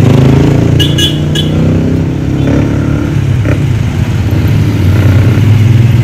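Carrier inverter air conditioner's outdoor unit running with a steady low hum, its compressor now running continuously without tripping off after the faulty ambient sensor and condenser sensor behind the P4 and P8 errors were replaced. Three short high chirps sound about a second in.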